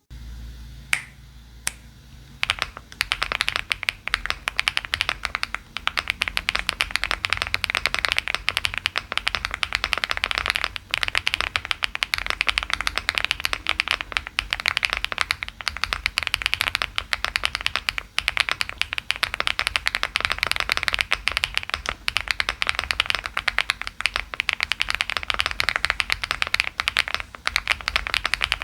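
Fast typing on a 75% mechanical keyboard with double-shot PBT keycaps: a few separate keystrokes, then a steady, rapid stream of key clacks.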